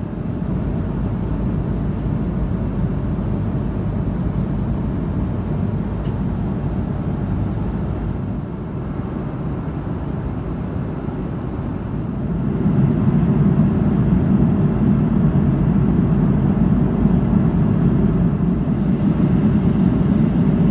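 Airliner cabin noise in flight: a steady rumble of airflow and the Airbus A330-300's Rolls-Royce Trent 700 engines. It grows louder about twelve seconds in.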